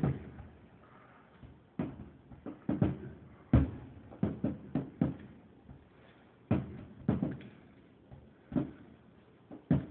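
Fireworks bursting outside, heard muffled from indoors through a window: a string of dull booms at irregular intervals, several coming in quick succession in the middle.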